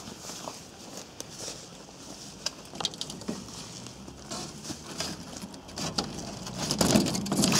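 Twin-wall polycarbonate greenhouse panel rattling and scraping against the metal frame as it is pushed into place, denser and louder in the last couple of seconds. Before that, scattered light rustles and clicks.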